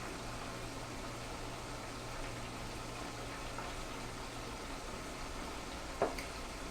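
Steady background hiss with a constant low hum, and one short click near the end.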